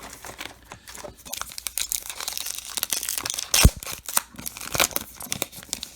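A baseball card pack's wrapper being torn open and crinkled, with continuous crackling and one sharp knock about three and a half seconds in.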